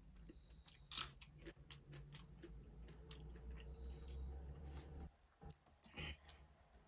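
Small clicks and taps of fingers and food on a stainless steel plate as a hand mixes noodles and rice, with one sharp tap about a second in. A steady high-pitched drone runs underneath.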